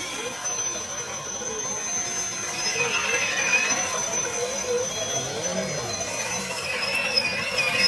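Electric drive motor of an RC scale crawler whining as the truck wades through deep muddy water, its pitch wavering up and down with the throttle.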